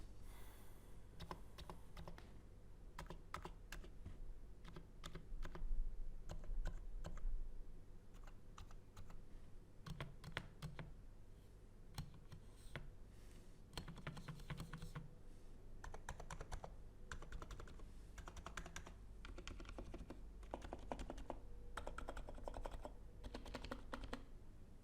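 Typing on a NIZ Plum 87 keyboard with 35 g electro-capacitive switches: a steady run of key presses in irregular bursts, busier in the second half.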